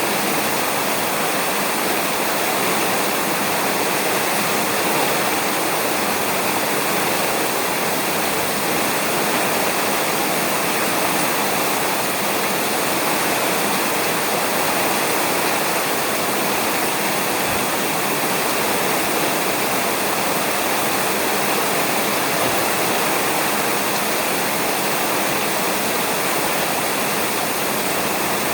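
Steady rain falling on a roof, an even hiss that does not change in level, with no thunder.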